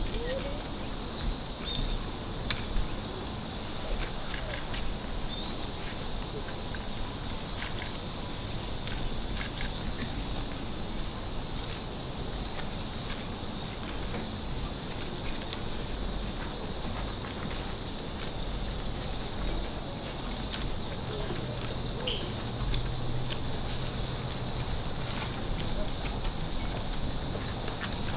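Steady, high-pitched insect chorus shrilling without a break, with scattered faint clicks and a few short chirps over it.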